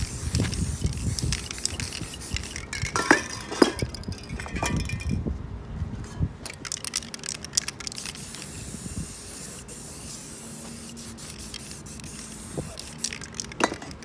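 Aerosol spray paint cans hissing in spurts as paint is sprayed onto a canvas, with a short break in the spraying about five seconds in.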